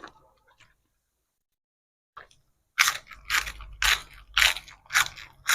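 A person chewing crunchy food close to the microphone. After nearly three seconds of near quiet, loud crisp crunches come about twice a second.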